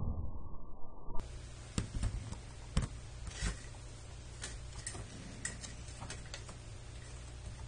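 A muffled low rumble fades and cuts off about a second in. After it, a faint steady hum with scattered light clicks and taps as a small plastic toy figure is handled in the fingers and set down on a hard tabletop.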